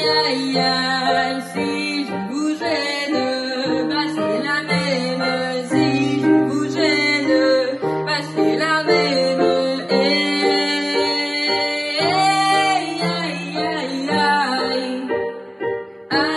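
A woman singing a song to instrumental accompaniment, her voice gliding over steadily held chords.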